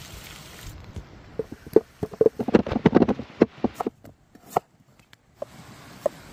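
Brief sizzling from a cast-iron skillet at the start, then a knife slicing through a raw potato onto a wooden board: a quick run of crisp cuts and knocks, densest a couple of seconds in, with a few single knocks after a short pause near the end.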